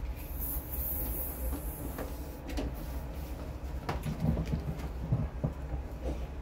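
Audio cables and connectors being handled and plugged into a mixer and power amplifier: scattered clicks and knocks, the loudest about four and five seconds in, over a steady low electrical hum.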